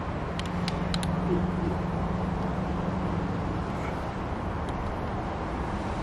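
A few light metal clicks from an Allen key and handle bolts being handled while the pole saw's loop handle is fitted, over a steady low hum that fades about four seconds in.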